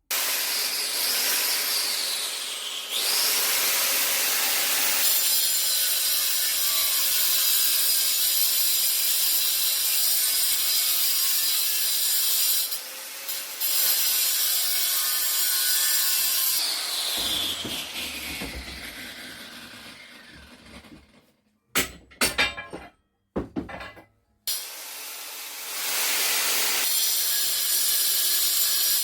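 Corded angle grinder with a diamond-edged cutting disc slitting a slot, a loud hiss over a high whine that dips as the disc bites. About two-thirds through it winds down with a falling whine, a few knocks follow, and it starts up and cuts again near the end.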